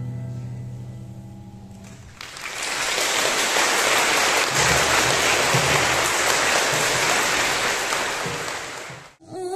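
A keyboard chord dies away, then an audience applauds for about seven seconds; the applause cuts off suddenly near the end.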